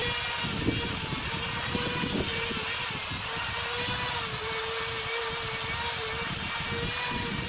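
Chainsaw engine running at high revs, holding a steady high pitch that wavers slightly as the saw works the wood.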